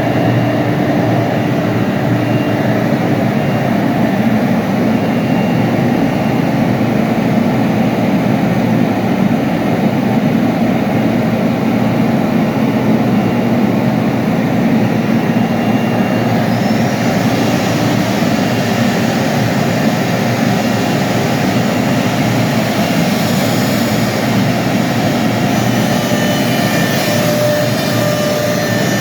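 CNC milling machine running, a steady loud machine noise from the spindle and cutting, with a faint rising whine about seventeen seconds in.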